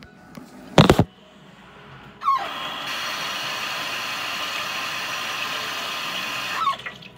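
A sharp knock about a second in, then a sink tap is opened and water runs steadily for about four and a half seconds before it is shut off, with a brief squeal as the flow starts and again as it stops.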